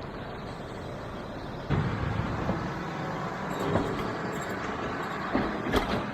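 Farm loader engine running; about two seconds in it gets sharply louder, as under load while working the bucket, with a few clunks later on.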